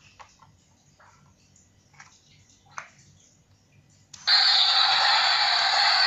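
Battery-powered toy concrete mixer truck switched on: about four seconds in, its small speaker suddenly starts a loud, tinny electronic sound effect that then runs on steadily. Before that, only a few faint plastic clicks as the toy is handled.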